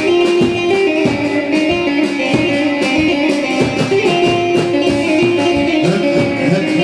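Loud amplified dance music with a plucked-string melody over a steady beat.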